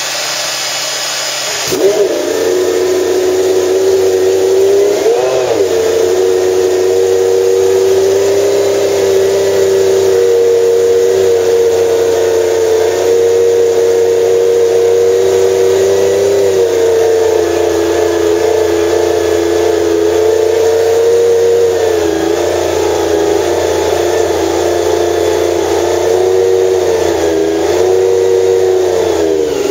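Lotus-Lamborghini Formula One car's 3.5-litre V12 warming up. A starter whines for about the first two seconds, then the engine catches and holds a steady high idle, with a few small throttle dips and blips.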